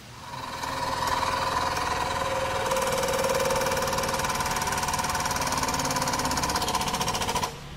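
Hydraulic press running as its ram forces a sheet-aluminium blank into a forming jig: a steady whine with a fast pulsing rattle that turns harsher about a third of the way in, then cuts off suddenly near the end.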